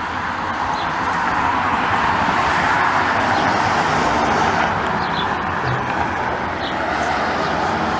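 Street traffic: a car driving past, its tyre and road noise swelling to its loudest in the middle and then easing a little.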